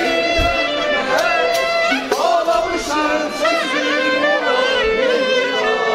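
A violin playing a sliding, ornamented melody with a voice singing along, as from restaurant musicians playing at the tables.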